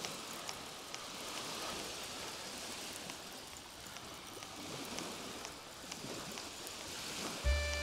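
Steady hiss of small waves washing on a sandy shore, swelling and easing slowly. Near the end, background music with a low bass comes in.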